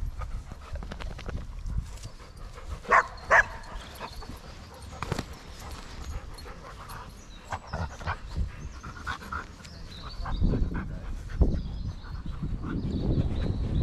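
Dog panting, with two short barks about three seconds in. A louder low rumble builds up over the last few seconds.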